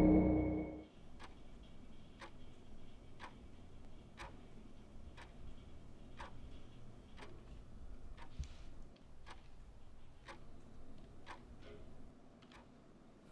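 A clock ticking steadily, about once a second, over quiet room tone, while the end of a piece of music fades out in the first second.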